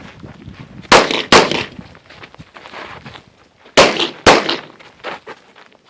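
Glock 34 9mm pistol firing four shots in two quick pairs, one pair about a second in and the other about four seconds in, each sharp crack followed by a short echo.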